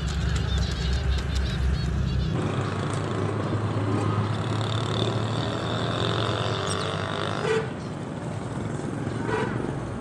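Street noise with vehicle engines running and a steady low hum. The low hum changes abruptly a little over two seconds in.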